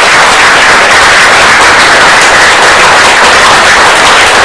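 Audience applauding: loud, dense, steady clapping.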